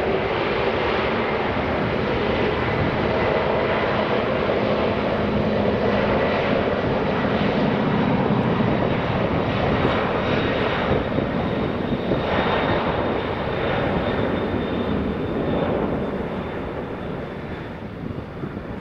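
Jet airliner's engines at takeoff power: a loud, steady engine noise with a faint high whine, falling away over the last few seconds as the aircraft departs.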